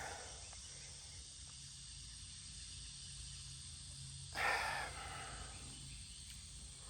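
Crickets chirping steadily in the background, with one short voice-like sound about four and a half seconds in.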